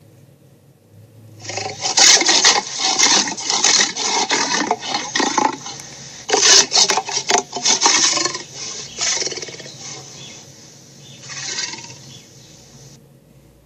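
Cartoon dragon roaring and growling with the Sharptooth roar sound effect, a rough, raspy series of roars starting about a second and a half in, loudest in the middle and ending with a weaker growl near the end.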